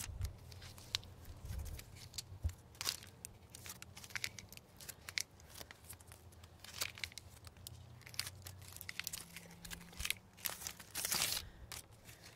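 Plastic chip-bag strips crinkling and crackling as they are twisted by hand into cordage. The crackles are small and irregular, with a longer crinkle near the end.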